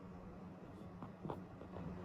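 Quiet room tone: a faint steady low hum, with a couple of faint short clicks a little after a second in.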